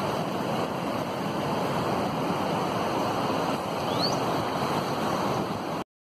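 Kaveri river in flood, its fast water rushing steadily. The sound cuts off abruptly near the end.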